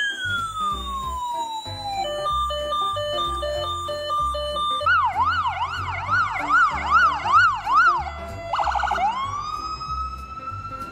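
Electronic emergency-vehicle siren cycling through its modes: a falling wail, a quick alternating two-tone, a fast up-and-down yelp for about three seconds, a brief rapid warble, then a rising wail near the end. A low pulsing sound runs underneath.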